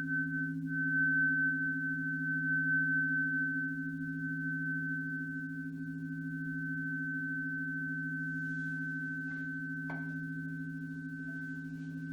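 Sound-healing instruments ringing on in a sustained chord: two low, steady tones with a slight wobble, and a single high ringing tone above them. A faint knock comes about ten seconds in.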